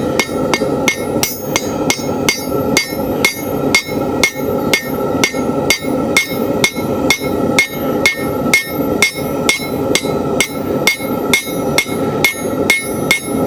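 Hand hammer striking a hot nail in a nail header on an anvil, forging the nail's head. Even blows come about three a second, with a metallic ring carrying on between them.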